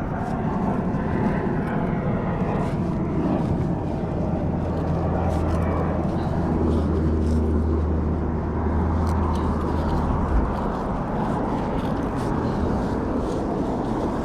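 Steady mechanical rumble. A low motor hum joins it about three seconds in and cuts off abruptly about ten seconds in.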